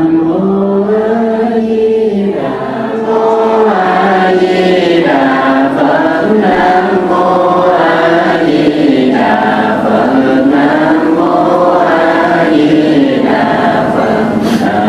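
Group Buddhist chanting (niệm Phật), many voices in unison on long held notes that rise and fall slowly in pitch.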